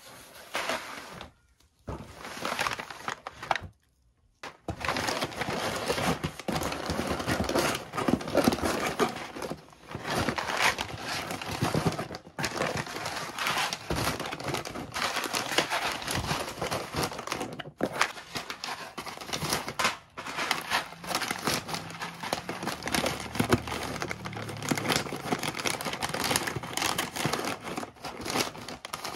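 Plastic food pouches crinkling and rustling as hands handle them and pack them into a cardboard box, with two short pauses near the start.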